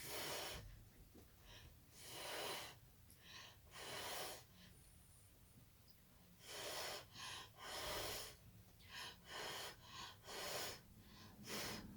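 A person blowing short puffs of air by mouth across wet acrylic pour paint, about ten breathy puffs in a row, to spread the paint and open up cells.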